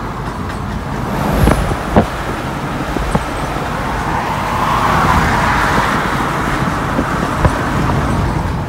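Road and wind noise inside a pickup truck cruising on a highway, with a swell of rushing noise around the middle and a few sharp knocks, the loudest about two seconds in.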